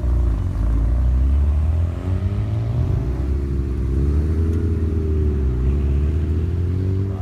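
Mazda rotary-engined sports cars running at low speed. A deep, steady engine rumble carries one engine note that rises in pitch through the middle and then falls back.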